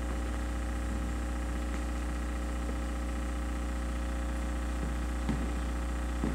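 Steady low mechanical hum of a large gymnasium's room tone, with a couple of faint knocks near the end.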